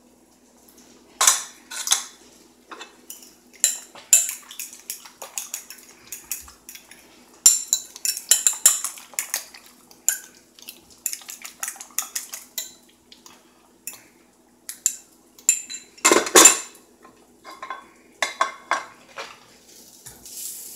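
Metal cutlery clinking against a glass bowl as cheese is cut into a raw egg and the mix is beaten with a fork: irregular runs of sharp taps, a fast run about eight seconds in, and a louder clatter about sixteen seconds in.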